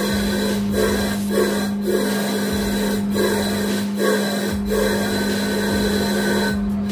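Repeated rubbing or scraping strokes, about two a second, over a steady low hum; the strokes stop shortly before the end.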